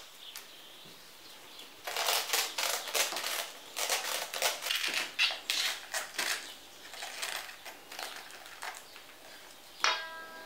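Romanesco artichoke being trimmed with a knife: the tough outer leaves crack and crunch as they are snapped and cut away, in a run of quick, crisp clicks starting about two seconds in.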